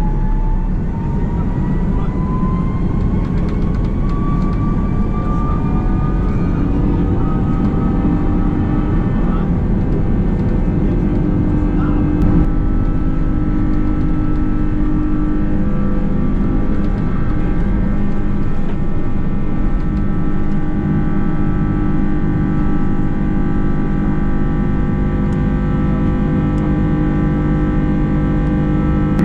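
Airbus A330 jet engines heard from the cabin, spooling up: a whine that climbs in pitch over the first several seconds, then holds steady over a loud, even roar as the engines run at high thrust.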